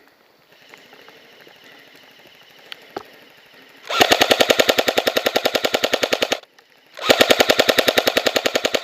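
Electric airsoft rifle firing two long full-auto bursts, each about two seconds long at around fifteen shots a second, with a short pause between them.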